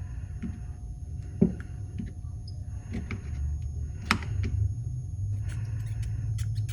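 Light clicks and taps of hands working a connector tab on a lead-acid battery terminal while it is heated with a soldering iron, the sharpest about one and a half and four seconds in, over a steady low hum.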